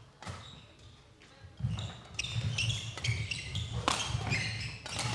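Badminton doubles rally on an indoor court: sharp racket hits on the shuttlecock, shoes squeaking and feet thudding on the court floor, getting busier about a second and a half in.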